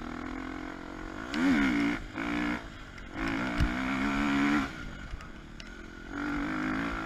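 KTM 250 EXC-F single-cylinder four-stroke dirt bike engine revving in short bursts of throttle, about four times, with the revs dropping back in between; the longest burst runs for about a second and a half. A single sharp knock sounds in the middle.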